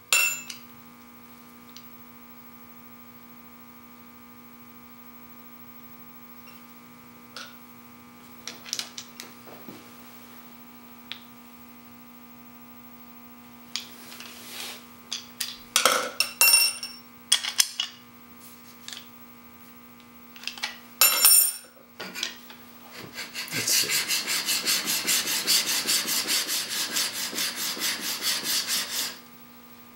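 Clicks and knocks of metal as a chisel in a General honing jig is adjusted, then, from about 23 seconds in, several seconds of quick back-and-forth scraping strokes, several a second, as the chisel's bevel is ground on an extra-coarse DMT diamond plate. The chisel is being set to a slightly steeper bevel angle.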